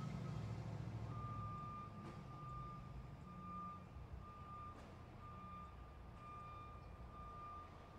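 Truck reversing alarm beeping at a steady pitch, about one long beep a second, starting about a second in, over a low engine rumble that fades after the first couple of seconds.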